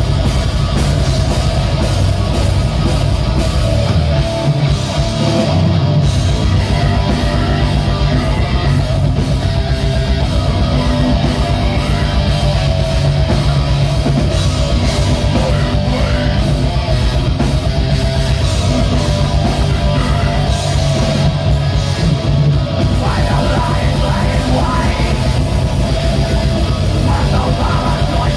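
Live heavy metal band playing: distorted electric guitars and a drum kit, with the vocalist's voice over them.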